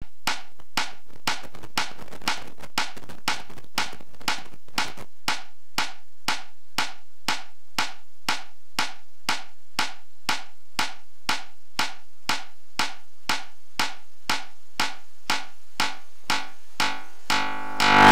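Metronome click track at 120 BPM, two sharp clicks a second, heard through a BL3207 bucket-brigade analog delay circuit with feedback. For the first few seconds a faint hiss trails each click, and then the clicks are clean. Near the end a loud, low humming tone with many overtones sets in.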